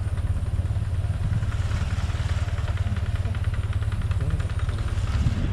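Small motorcycle engine running steadily at low speed, heard from the bike itself, with a fast, even pulse.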